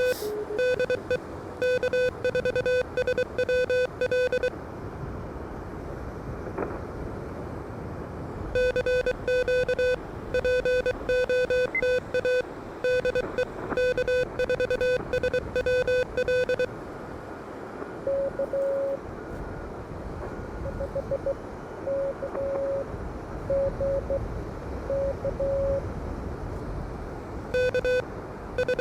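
Morse code (CW) keyed on an Elecraft KH1 transceiver: a loud, buzzy tone near 500 Hz sent in bursts of dits and dahs, which drops out for a stretch in the middle while a fainter, slightly higher-pitched Morse signal comes in over steady band noise. The buzzy tone is typical of the radio's own sidetone while sending; the fainter one is another station being received.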